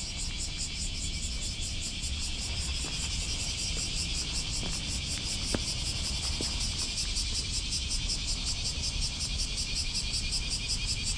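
Dense chorus of cicadas, a steady high-pitched buzz with a rapid even pulse, over a low rumble.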